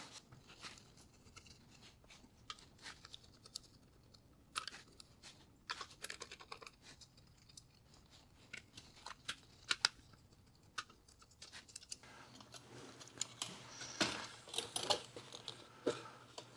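Scattered small clicks and taps of hand tools and components being handled on a radio circuit board during capacitor removal. A faint low hum comes in about twelve seconds in, and the clicks grow busier near the end.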